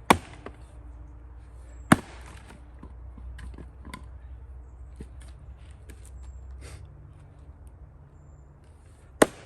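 Axe chopping, splitting firewood by hand: three sharp strikes, the first two about two seconds apart and the third near the end, with lighter knocks of wood between.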